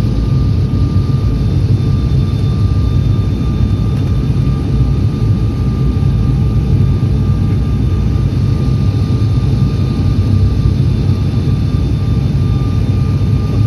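Steady drone of a turboprop airliner's engines and propellers heard inside the cabin: a heavy low rumble with a constant high tone over it.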